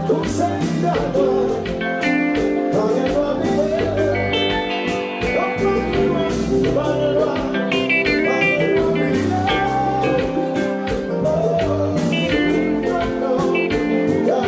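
Live kompa band music: a male lead singer singing over a steady drum beat and guitar.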